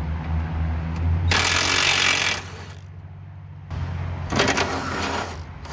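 Cordless impact driver hammering as it loosens bolts on a car's radiator support, in two bursts of about a second each: the first about a second and a half in, the second about four seconds in. A steady low hum runs underneath.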